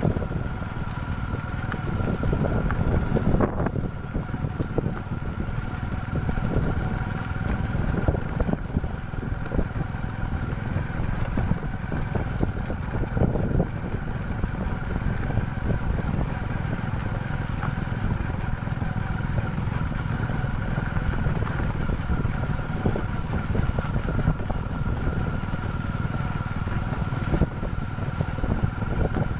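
Motorcycle engine running steadily while riding along a dirt track, with a low rumble of road and wind noise.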